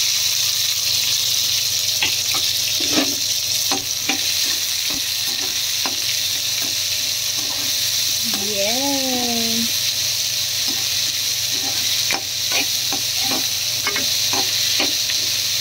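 Freshly added chopped onions and green chillies sizzling steadily in hot oil in a kadhai. A metal spatula stirs them, clicking and scraping against the pan now and then.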